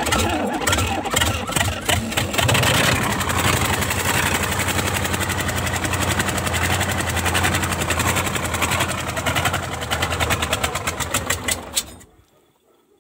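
YaMZ-238 V8 diesel engine turning over and firing roughly, trying to catch after its fuel system has been primed to bleed out air. The loud, rapid, even chug stops abruptly near the end.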